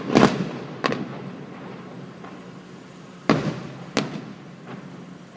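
Fireworks shells bursting: four sharp booms, two near the start and two more about three and a half seconds in, each trailing off in an echo.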